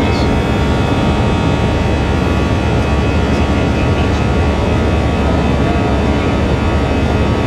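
Jet airliner engines heard from inside the cabin: a steady, loud rumble with a layer of steady whining tones over it.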